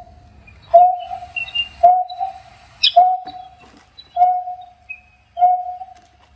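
A recorded bird lure call played through a Music Tribe AT-101 bird-trapping speaker: a single whistled note repeated about once a second, with fainter higher chirps behind it.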